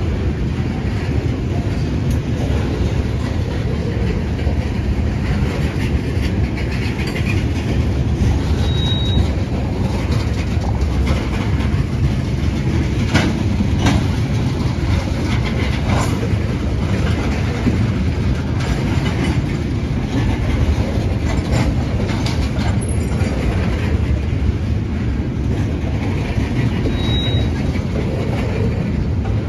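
Ethanol tank cars of a CSX freight train rolling past close by: a steady rumble of steel wheels on rail with the clickety-clack of wheels over rail joints, and a few sharp clanks about halfway through.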